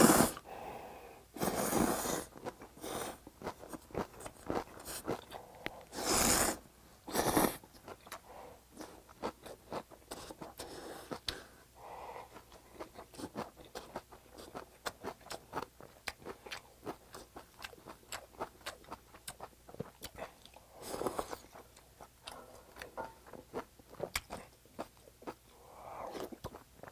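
A person eating close to the microphone: loud slurps of ramen noodles and broth, about six in all, with wet chewing and lip-smacking clicks between them.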